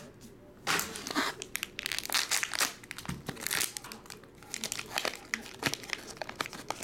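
Plastic trading-card pack wrapper being crinkled and torn open by hand, a tough-to-tear bag, with irregular crackling and rustling.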